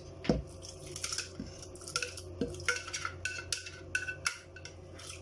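Metal pressure-cooker pot knocking and clinking against a stone cooking pot as cooked spinach and lentils are tipped and scraped out into it. A sharp knock comes about a third of a second in, followed by a run of short scrapes and clinks.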